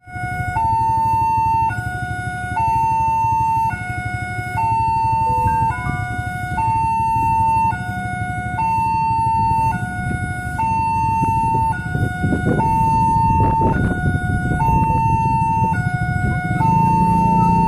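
Electronic two-tone level-crossing warning siren, alternating between a lower and a higher tone about once a second, a full cycle every two seconds. Underneath is the low rumble of waiting motorcycle engines idling.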